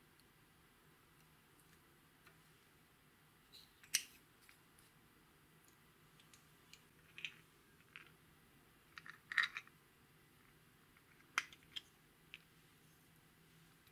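Scattered small clicks and taps of plastic makeup packaging being handled: a liquid lipstick tube and its applicator cap, then a small plastic case of beads being opened. A quick cluster of clicks comes about halfway through.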